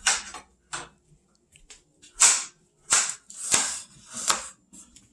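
Kitchen items being handled: a run of short, irregular clatters and rustles, about six in all, as ingredients and containers are moved and set down.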